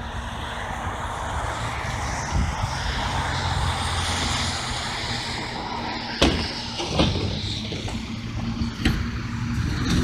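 A car driving past on the street, its engine and tyre noise swelling and then fading over a few seconds, followed by a few sharp knocks near the end.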